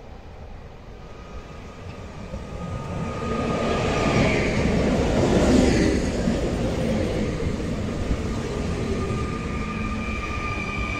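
Electric multiple unit passing along the platform close by. Its rumble and wheel noise build to a peak about five or six seconds in, where a whine falls in pitch as the front passes. The cars then keep running past with a steady rumble and a thin whine.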